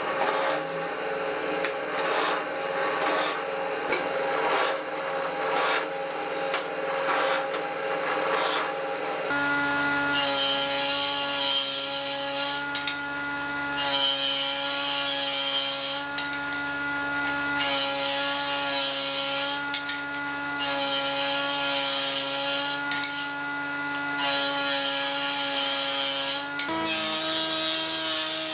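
A drill press with a countersink bit cuts into a wooden board. After about nine seconds a table saw takes over: its motor runs steadily and the blade rips through wood in about six short cuts, each lasting a second or two.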